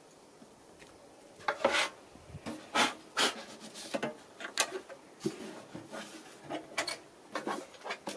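Irregular knocks, clicks and short scrapes as Ikea drawer and cabinet parts are handled and fitted together, starting about one and a half seconds in.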